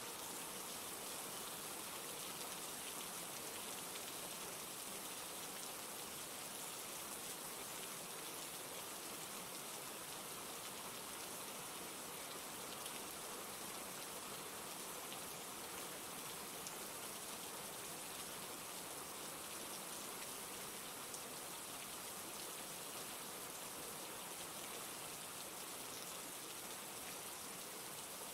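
Steady rain falling, an even hiss of many fine drops without let-up.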